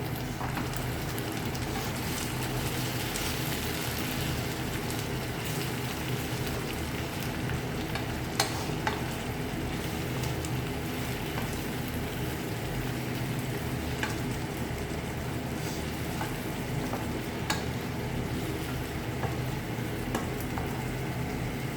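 Food sizzling in a frying pan while it is stirred with a spoon, over a steady low hum. A few sharp clicks of the spoon against the pan come through now and then.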